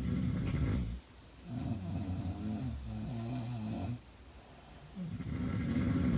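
A woman snoring in her sleep, in a slow rhythm. One snore ends about a second in, a longer one runs from about a second and a half to four seconds, and another starts about five seconds in.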